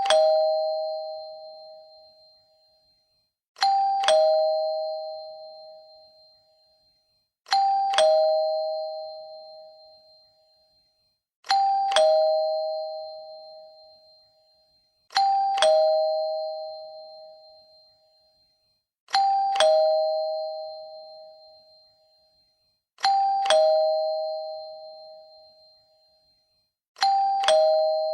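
Two-note ding-dong doorbell chime: a higher note struck, then a lower note, both ringing out and fading over a couple of seconds. The chime repeats about every four seconds.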